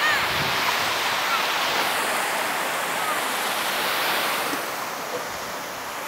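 Sea waves washing onto a sandy beach: a steady surf hiss that eases slightly near the end.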